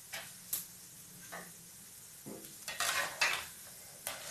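Perforated steel slotted spoon scraping and clattering against a frying pan as it goes under a nest of sev frying in hot oil to lift it out, with a few short sizzles. The loudest scrapes come about three seconds in.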